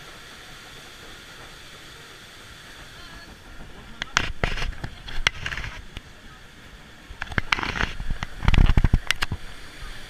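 River rapids raft ride: a steady rushing hiss of water, with two loud stretches of crackling, splashing noise and sharp clicks, about four seconds in and again about seven seconds in.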